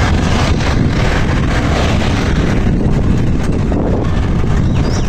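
Steady road noise of a moving vehicle, a low rumble under a broad rushing hiss with wind on the microphone.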